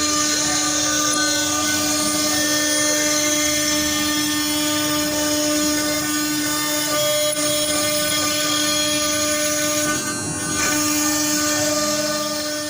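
MINIMO 6090G CNC router running, its spindle giving a steady high whine over machine noise, with gliding motor tones in the first few seconds. The sound briefly dips about ten seconds in and fades near the end.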